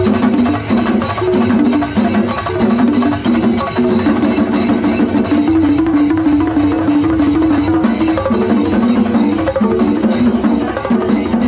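Festival band music: a melody moving in steps over fast, steady drumming and percussion.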